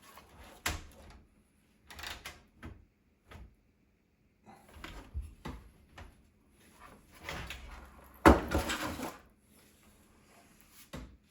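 Knocks, scrapes and rattles of a power supply being worked into a PC case, the loudest knock coming about eight seconds in.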